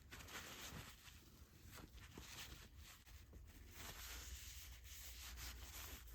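Faint rubbing of a paper towel wiping down a snowmobile shock absorber, a series of short irregular swishes.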